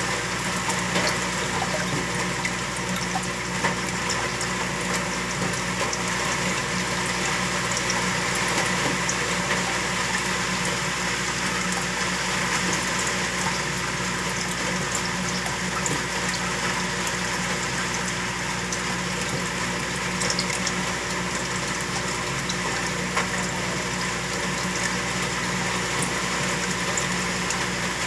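Saltwater aquarium's pump and circulating water running steadily: an even rush of moving water over a constant low hum.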